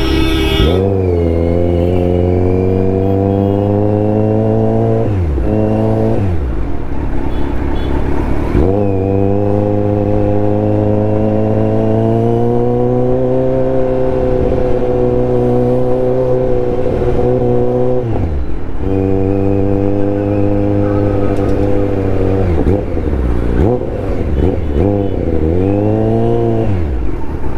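Kawasaki Z900 inline-four motorcycle engine and exhaust under way, its pitch climbing and holding with the throttle. It drops sharply a few times, then gives a few quick dips and rises near the end.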